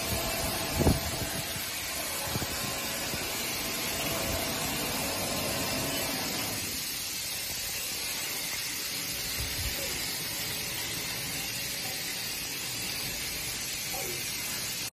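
A carbonated-drink rinsing-filling-capping line running, with bottles on its conveyor: a steady hiss of machinery, with a sharp knock about a second in and a few lighter knocks later.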